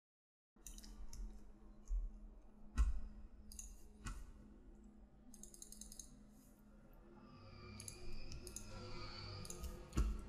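Computer mouse clicking as 3ds Max is worked: scattered single clicks, a few louder than the rest, and a short run of rapid clicks about halfway through, over a faint steady hum.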